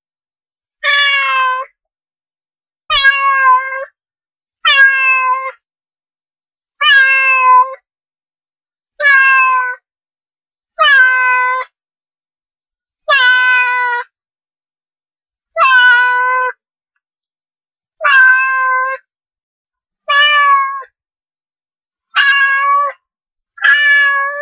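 A domestic cat meowing over and over: about a dozen meows, each under a second long, one every two seconds or so, with complete silence between them.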